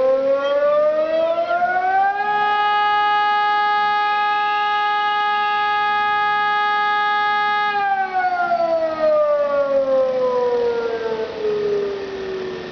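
Civil defence siren wailing. Its pitch climbs over about two seconds, holds steady for about five seconds, then slides slowly back down near the end.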